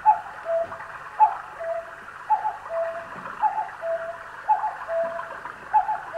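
Casio electronic keyboard playing a repeated two-note falling figure, a higher note followed by a lower one, about once a second.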